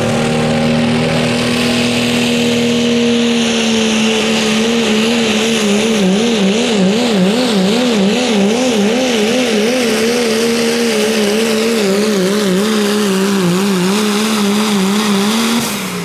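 Diesel pickup truck engine at full throttle pulling a weighted sled, its high steady note wavering up and down about twice a second as the truck bounces under load. Near the end the engine comes off throttle and its pitch drops as the pull ends.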